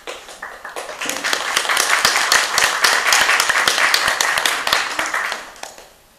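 Small audience applauding, the clapping swelling about a second in and dying away near the end.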